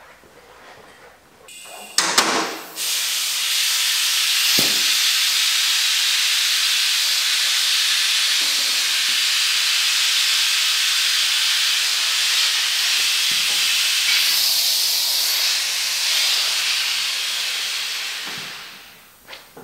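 Compressed air hissing steadily out of a pneumatic motorcycle lift's release valve while the lift lowers, after a couple of knocks about two seconds in; the hiss tapers away near the end as the lift comes down.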